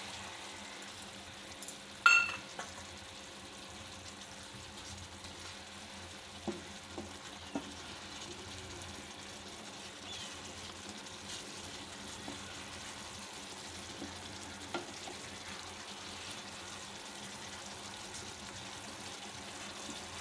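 Fish curry simmering and sizzling in a pan while a wooden spatula stirs it, a steady bubbling hiss with a few light knocks. A sharp ringing clink about two seconds in.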